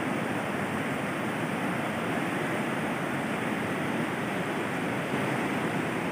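Swollen river in flash flood, its fast current rushing steadily in an even, continuous noise.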